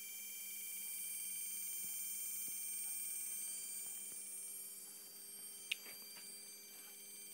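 Steady high-pitched electronic whine made of several pure tones, growing a little fainter about five seconds in, with one sharp click shortly after.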